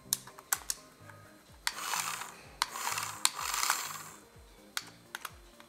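Toy RC car's small electric drive motor and plastic gearbox whirring in two short bursts, with its wheels spinning freely in the air, amid several sharp plastic clicks.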